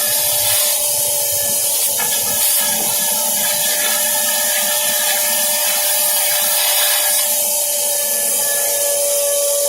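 Shop vac running steadily: a loud rush of air with a constant motor whine, used to blow or suck flushing water out of the car's air-conditioning evaporator.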